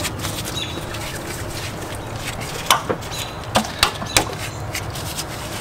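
Camshaft bearing caps and other small metal parts clicking against the aluminium cylinder head of a 1.6 L 16-valve four-cylinder engine as they are fitted by hand. There are about five sharp clicks in the middle, over steady background noise.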